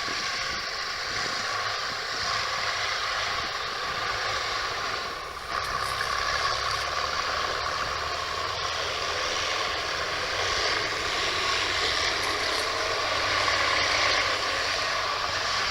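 Sherp amphibious ATVs' engines running steadily in the distance as the vehicles drive up out of the sea, under a steady rushing noise. The sound dips briefly about five seconds in.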